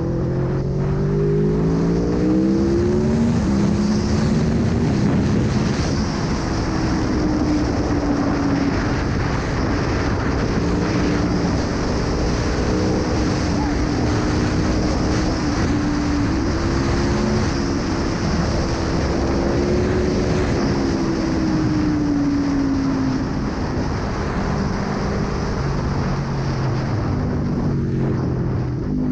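Aprilia Tuono 1100's V4 engine under way: the revs climb over the first few seconds, hold fairly steady at speed, then drop near the end. Wind rushes over the microphone throughout.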